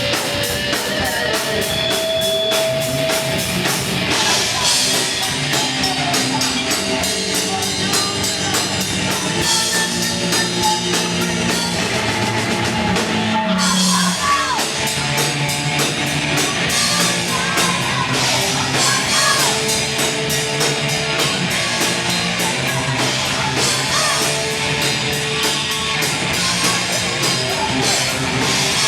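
Heavy metal band playing loud and fast, with a pounding drum kit, guitars and sung vocals.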